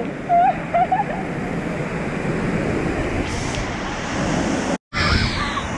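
Steady rush of a waterfall pouring and splashing close at hand, broken by a split-second gap in the sound near the end.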